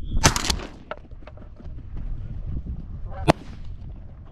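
Canada geese honking, with a loud harsh honk just after the start and fainter calls after it. A single sharp crack about three seconds in.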